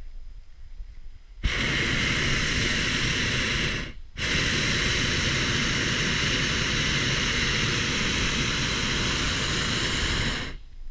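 Hot air balloon's propane burner firing overhead: a loud steady blast that starts suddenly about one and a half seconds in, cuts out briefly around four seconds, then runs for about six more seconds before shutting off.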